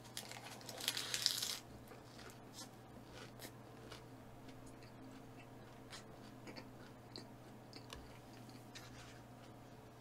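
Close-miked eating: a loud, crunchy bite in the first second and a half, then quiet chewing with small clicks.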